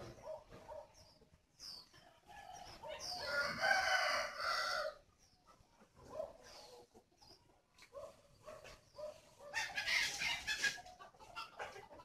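A rooster crows: one long crow lasting about two seconds, starting about three seconds in, and a second loud call near ten seconds. Short high chirps of small birds come in between.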